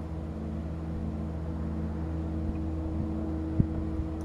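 Steady low droning hum made of several held low tones, which the recordist attributes to a large industrial engine at a distant aluminium smelter. A single sharp click falls about three and a half seconds in.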